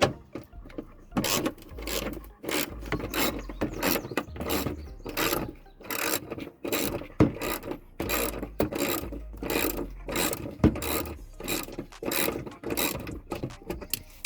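Hand ratchet with a 10mm socket clicking in repeated back-and-forth strokes, about two a second, as a bolt is turned out.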